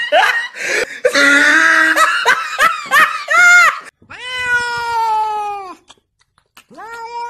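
A person laughing hard in quick bursts, then a domestic cat giving a long, slightly falling meow about four seconds in and a second, shorter meow near the end.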